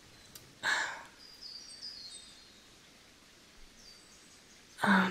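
A woman's short, breathy exhale just under a second in and another near the end, over a faint nature ambience with a few high bird chirps.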